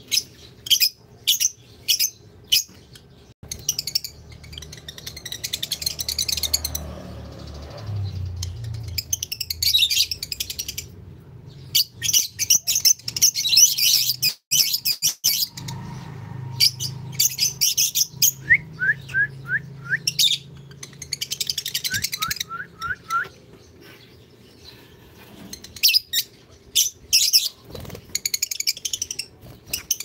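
Caged African lovebirds chirping and squawking in repeated shrill bursts, with two short runs of quick falling whistle notes in the middle.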